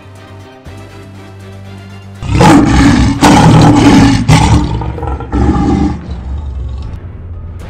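A lion roaring over background music. The roar cuts in sharply a little over two seconds in, comes in several loud surges, and dies away by about six seconds.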